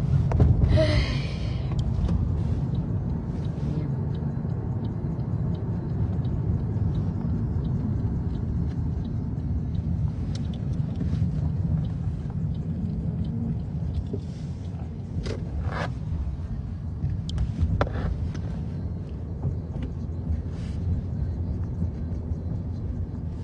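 Steady low rumble of a car driving, heard from inside the cabin, with a few brief clicks.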